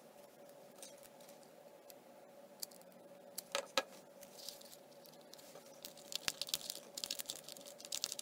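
Faint, scattered crinkles and clicks of a thin soda-bottle plastic shield being handled, a cluster about halfway through and more near the end, over a faint steady hum.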